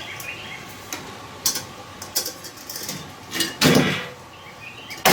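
Metal grill parts being handled during assembly: light metallic taps and clicks, then a louder clatter about three and a half seconds in.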